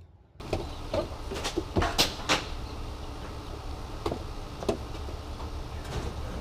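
Mini excavator's engine running with a steady low rumble, with scattered clunks and knocks, the loudest about two seconds in.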